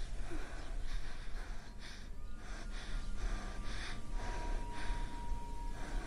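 A woman breathing hard in quick, gasping breaths, about two a second, over a low rumble.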